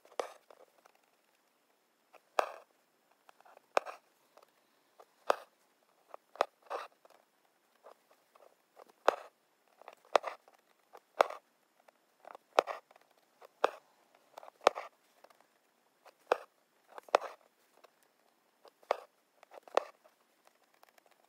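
Embroidery needle punching through fabric stretched taut in a hoop, and thread drawn through after it. Short sharp taps and rasps come about once a second in an uneven rhythm.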